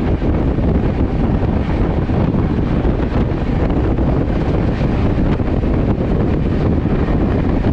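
Shan-e-Punjab Express train running at speed: a steady, loud rumble of wheels and track, with wind buffeting the microphone.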